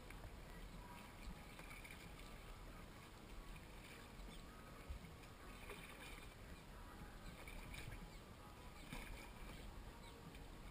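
Faint kayak paddling on calm water: a paddle blade dipping and dripping every two seconds or so, over a low steady background hiss.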